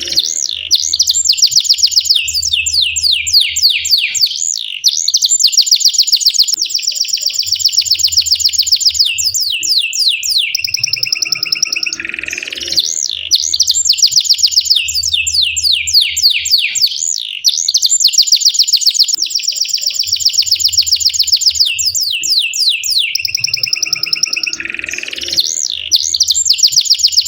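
Domestic canary singing a long rolling song of fast, high trills, phrase after phrase with brief breaks: a bird in full song. The same run of phrases comes round about every twelve seconds.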